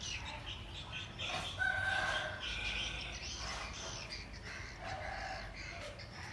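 A rooster crowing once, about a second in, with other birds calling around it.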